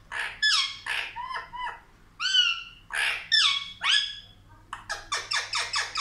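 Indian ringneck parrot calling: a string of short squawks and chirps that rise and fall in pitch, ending in a quick run of about seven short calls near the end.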